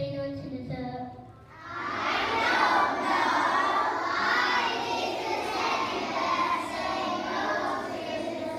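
A child's voice through a microphone and PA speaker for about the first second, then a hall full of young schoolchildren shouting and cheering together for the rest.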